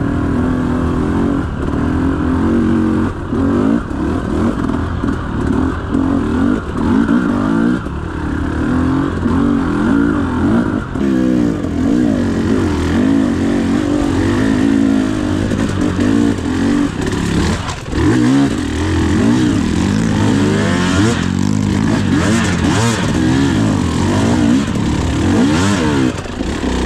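Enduro dirt bike engine running on a trail ride, its pitch rising and falling again and again with the throttle.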